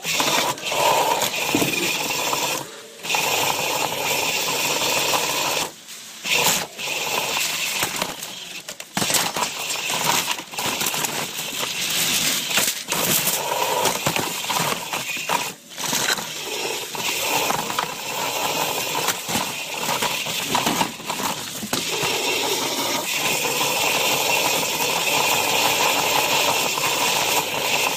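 A small wheeled soccer robot driving about, picked up by a microphone mounted on it: its drive motors give a steady whine while its perforated aluminium chassis rattles and scrapes, with frequent short clatters and dropouts.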